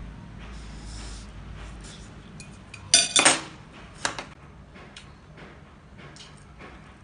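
Metal spoon and fork clinking against a plate while food is scooped up and eaten, with a loud cluster of clinks about three seconds in and another a second later. Softer eating sounds and light clicks in between.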